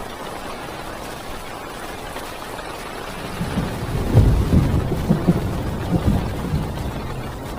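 Heavy rain drumming steadily on a car's windows and body, heard from inside the car. About three seconds in, a loud roll of thunder rumbles in, with several swells, and dies away near the end.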